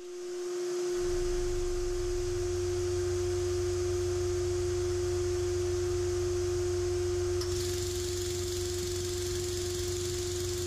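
Tormach PCNC 440 spindle spinning up and running a facing tool over brass: a steady high whine over a low hum, which settles within the first second. A high hiss joins about seven and a half seconds in.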